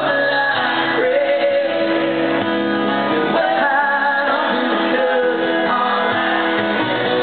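Live country band playing in an arena, amplified guitars under a singer holding long, wavering notes.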